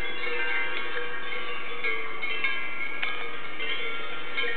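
Many cowbells ringing and clanking at once in an irregular jangle, with overlapping bell tones and scattered sharper strikes.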